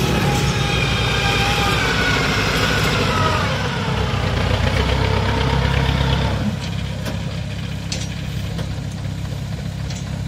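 A rice-harvesting machine's engine running at high revs with a whine that falls in pitch, then throttled back to a quieter idle about six and a half seconds in.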